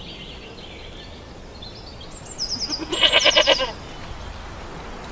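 A ram gives one quavering bleat about halfway through, lasting about a second.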